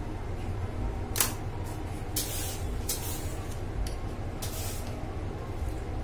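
A sharp click, then a few short rustles as a plastic piping bag with a metal nozzle is handled, over a steady low hum.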